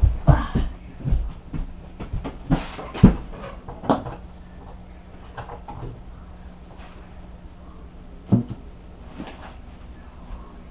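Knocks, bumps and clatter of things being handled off to the side while a microphone is fetched and set up. There is a quick run of knocks over the first four seconds, then quieter shuffling, and one more thump a little past eight seconds.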